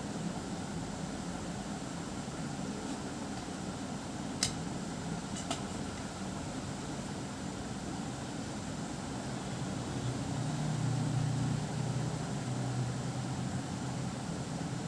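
Steady low mechanical hum, growing a little louder about two-thirds of the way through, with two short sharp clicks about a second apart near the middle.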